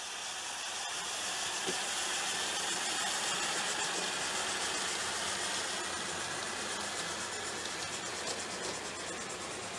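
Live-steam G-scale Accucraft C-19 locomotive passing close by with its train: a steady hiss of steam with rapid, even exhaust beats and wheels rolling on the rails. It grows louder to a peak about three seconds in, then eases slowly as it goes by.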